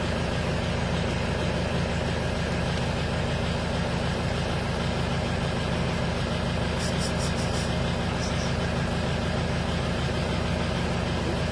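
A vehicle engine idling steadily, a constant low hum. A few short high chirps or ticks come about seven to eight seconds in.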